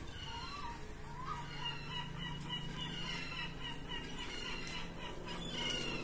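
Gulls calling, a run of repeated cries, over a low steady hum.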